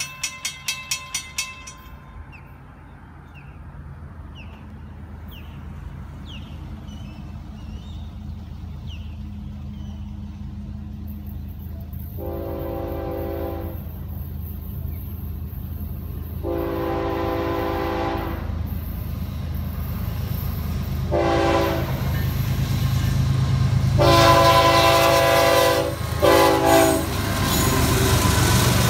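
Railroad crossing bell ringing briefly and fading out, then the horn of Florida East Coast Railway GE ES44C4 diesel locomotives sounding the grade-crossing signal: two long blasts, a short one and a final long one. Under it the diesel engines rumble, growing louder as the locomotives arrive at the crossing.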